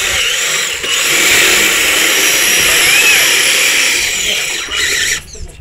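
Electric motor and gear drivetrain of an RC 6x6 rock crawler whining steadily as it drives, the pitch briefly rising and falling about halfway through; the sound drops away near the end.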